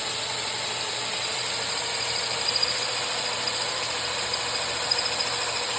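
Electric drill running steadily as it bores a dowel hole into old wood.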